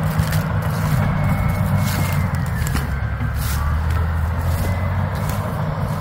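A vehicle engine running steadily with a low hum, with occasional short snaps and crackles over it.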